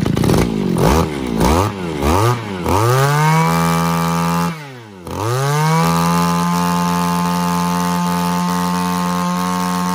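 Mitsubishi TL261 26cc two-stroke backpack brush cutter engine blipped several times, then revved to full throttle. It drops back for a moment around the middle, then revs up again and holds a steady high speed, picking up quickly with little throttle.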